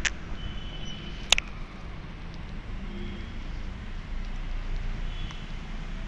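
Steady low background rumble with two sharp clicks, one at the start and another about a second later.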